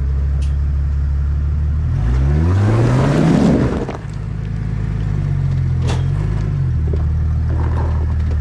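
Jeep Cherokee XJ engine running steadily at low revs, then revving up for about a second and a half about two seconds in, with a rough rush of noise at the peak. The revs drop off suddenly near four seconds and settle back to steady running, with a smaller rise and fall later.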